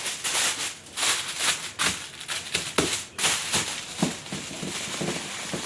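A sheet of aluminium foil being folded and crumpled by hand: a quick, irregular crackling.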